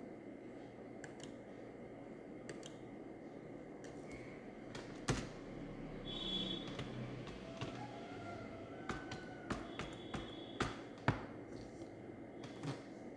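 Single clicks of computer keys and a mouse, about a dozen spaced irregularly over several seconds, closer together in the second half, over a faint steady hiss.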